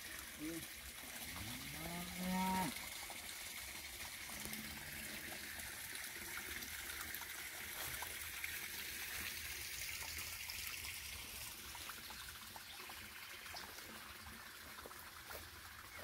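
A cow mooing once, a single rising call about two seconds in, over a faint steady trickle of running water.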